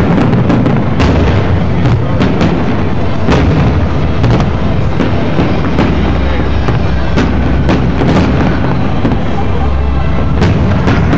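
Aerial fireworks display: shells bursting one after another, a string of sharp bangs at irregular intervals, about one or two a second, over a continuous loud rumble.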